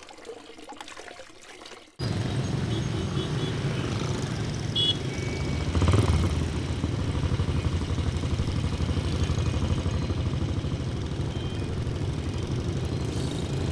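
Step-through motorbike engine running amid street traffic. The sound starts abruptly about two seconds in and peaks as the bike passes close, about six seconds in. A brief high beep comes just before.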